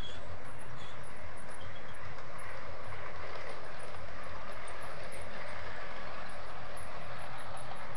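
00 gauge model train running on the track: a steady whirring rumble of the motor and wheels on the rails, with faint light ticks over it.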